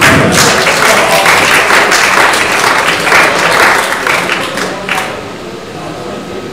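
Audience applauding, fading away about five seconds in.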